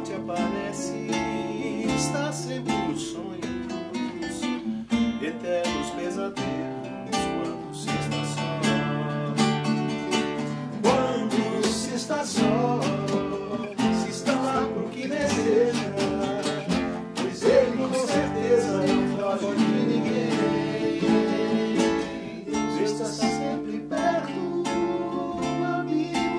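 Acoustic guitar playing: plucked and strummed chords with a melody wavering above them.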